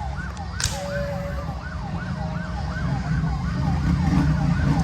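A siren in a rapid yelp, its pitch rising and falling about three times a second, over the steady low rumble of a vehicle engine.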